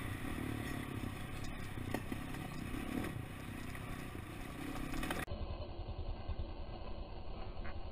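KTM 530 EXC single-cylinder four-stroke motorcycle engine running at low speed as the bike rolls over the loose wooden planks of a bridge, with clattering knocks from the boards. The sound changes abruptly about five seconds in, at a cut to another clip.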